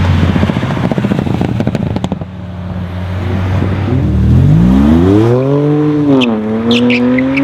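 Car engine with a crackling, popping exhaust for the first two seconds or so, then revving with rising pitch, dipping briefly about six seconds in and climbing again. A few short high squeaks near the end.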